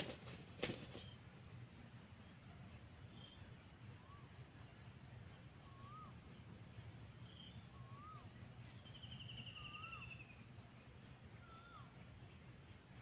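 Faint rural ambience of insects buzzing high and thin, with a short rising-and-falling chirp repeated every second or two and a quick falling trill about nine seconds in. A sharp click sounds about half a second in.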